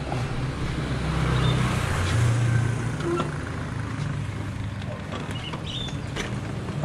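Motor-vehicle engine running steadily, with traffic noise that swells about one to three seconds in and then eases.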